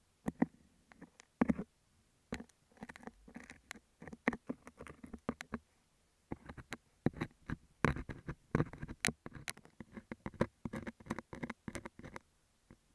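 A metal dental scaler scraping and picking at a beeswax sheet over an earphone microphone, very close. It makes fast runs of small sticky scratches and taps, with a short pause about halfway.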